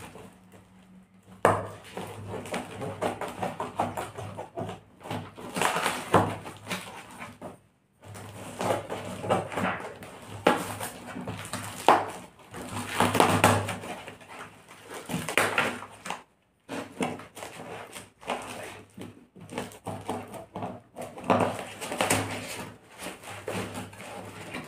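Plastic stretch wrap and packing tape crinkling, crackling and tearing as a parcel is peeled and cut open with scissors, in an irregular run of rustles and sharp clicks.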